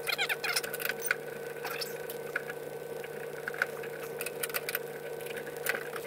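Scattered light clicks and taps from hands and a 10 mm wrench working on a 1961 VW Beetle's hood latch, a quick cluster at the start and then single clicks about once a second, over a steady hum.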